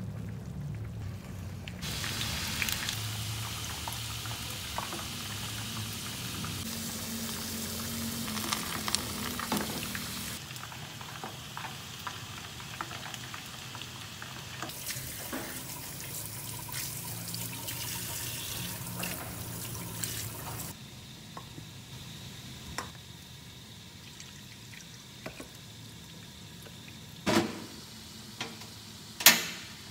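Skewered spiral-cut potatoes frying in a pan of cooking oil: a sizzle that starts suddenly about two seconds in as they go into the hot oil, then comes and goes. Near the end come two sharp knocks.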